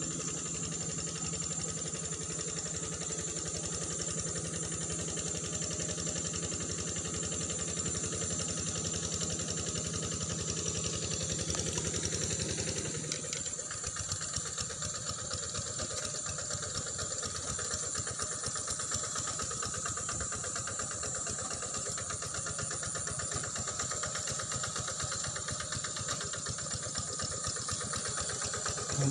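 A low engine hum, like a motorcycle idling, that stops abruptly about thirteen seconds in, over a steady high-pitched hiss.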